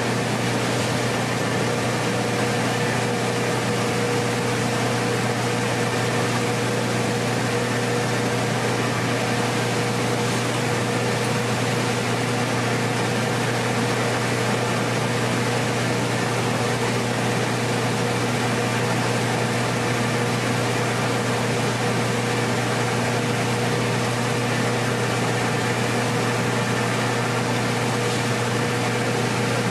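Mini rice mill machinery running steadily: a constant mechanical hum with a low drone and a steady higher tone over a hiss, unchanging throughout.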